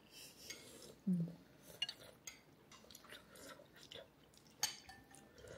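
Metal spoon and fork clinking lightly against ceramic bowls and plates while eating: a few scattered short clicks, the sharpest about four and a half seconds in.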